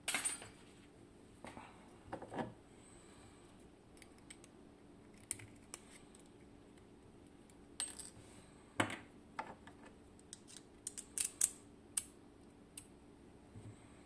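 Scattered light metallic clicks and taps from a Magnum Atlantic lock cylinder being handled and its small retaining clip pried off with a screwdriver. There is a sharp click right at the start and a quick run of clicks near the end.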